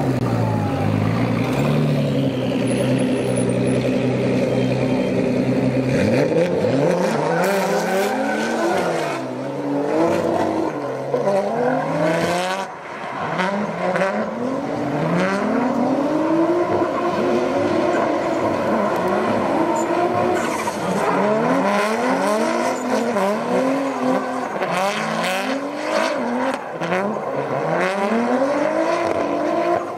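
Drift car engines: first held at steady revs, then from about six seconds in revving up and falling back over and over as two cars slide through a tandem drift, with tyres squealing.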